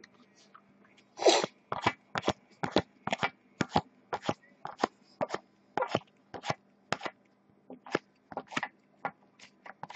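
2014 Topps Prime football trading cards being flipped one at a time through a stack in the hand, each card giving a short flick, about two to three a second, starting about a second in.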